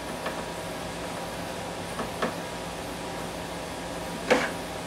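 A few light clicks of hands handling the plastic housing and controls of a Festool dust extractor, with one sharper click about four seconds in, over a steady background hum.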